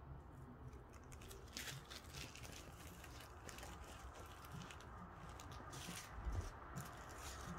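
Faint, scattered crinkles and rustles of small plastic zip-top bags of diamond painting drills being handled, with the resin drills shifting inside.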